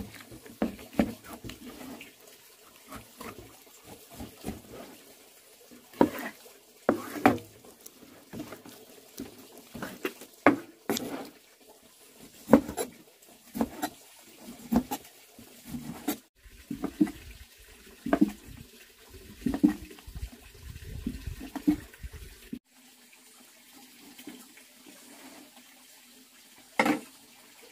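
Water splashing and sloshing in irregular bursts, with sharp knocks and clatters mixed in.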